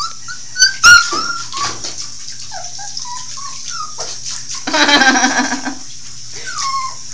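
Border Collie puppy whimpering in a string of short, falling whines, with one louder, longer cry about five seconds in, while water sprays from a handheld shower head. Two sharp knocks sound near the start.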